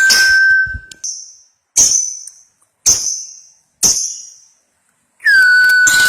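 Lovebird song: a fast high chatter with a steady whistled tone under it stops about a second in. Four single sharp, high calls follow, about a second apart, and the long chatter starts again near the end.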